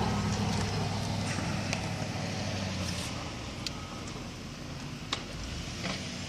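A snow plow truck's engine running, its hum fading over the first few seconds, with a reversing beeper sounding briefly now and then and a few sharp clicks.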